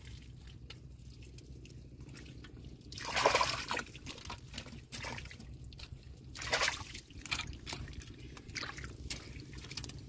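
Shallow muddy pond water splashing, sloshing and dripping as it is worked by hand while fishing, with scattered small drips. There is a louder splash about three seconds in and another about six and a half seconds in.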